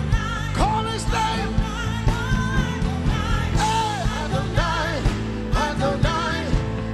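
Live worship music: voices singing a sustained melody with vibrato over a band keeping a steady beat.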